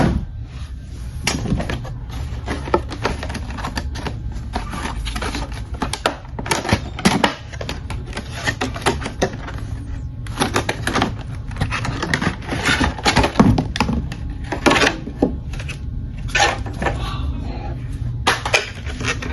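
Handling noise from a small speaker's retail box being opened and unpacked: irregular clicks, taps and rustles of cardboard and plastic packaging, with a few sharper knocks. A steady low hum runs underneath.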